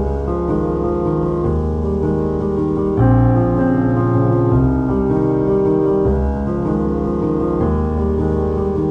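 Background music: a keyboard, piano-like, plays sustained chords that change about every one and a half seconds.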